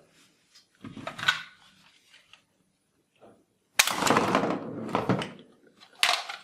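Plastic toys being handled, with knocks and clatter: a short cluster about a second in, and a louder clatter that starts sharply about four seconds in and lasts about a second and a half.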